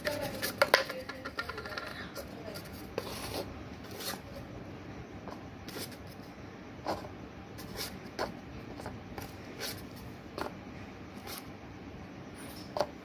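Paper cups being stacked upside down into a tower on a hard floor: irregular light taps as each cup is set down, with rubbing and rustling of paper as the cups are handled.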